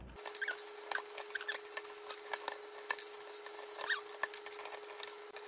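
Sped-up audio of an African grey parrot prying keycaps off a plastic computer keyboard: a rapid patter of plastic clicks with a few short, high squeaky chirps, over a steady hum-like tone.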